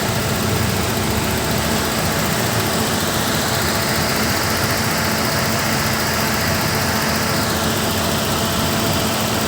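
Car engine idling steadily with the bonnet open during a charging-system check; the alternator puts out only about 12 V, which the mechanic takes for a failed alternator.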